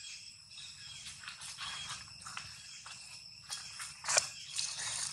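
Steady high-pitched insect chirring at several pitches, with scattered short clicks and rustles, the sharpest about four seconds in.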